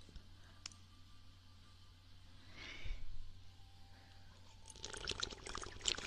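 Wet mouth clicks and licking sounds close to the microphone, typical of ASMR ear licking: a lone click early, then a quick crackling run of clicks from about five seconds in.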